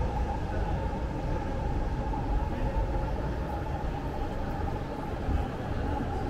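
City street ambience: a steady low rumble of vehicles under continuous street noise, with no distinct events.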